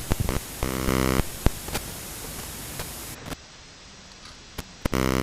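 Static hiss with scattered crackling clicks, broken by a short harsh buzz about a second in and another near the end; the hiss drops lower a little past halfway.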